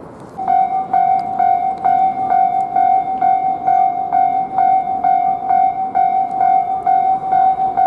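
Railway level-crossing warning bell starts about half a second in and rings steadily, one ding about twice a second: the crossing is closing for an approaching train.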